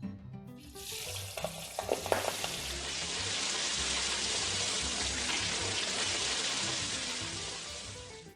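Shrimps deep-frying in hot oil over high heat: a loud, steady sizzle that swells in about a second in, with a few sharp crackles near two seconds in, and cuts off at the end. Background music runs faintly underneath.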